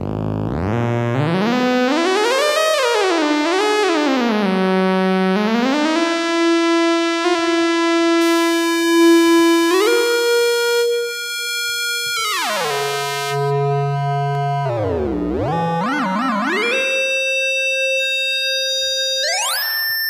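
Noise Engineering Sinc Iter Eurorack oscillator in its plain mode: a single synth tone rich in overtones, its pitch gliding up and down between held notes while its tone colour shifts. About two-thirds of the way through it sweeps down very low and back up, and near the end it glides up to a high held note.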